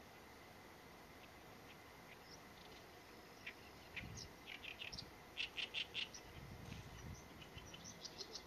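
Oriental reed warbler singing: scattered harsh, chattering notes, with a loud run of about five quick repeated notes a little past the middle.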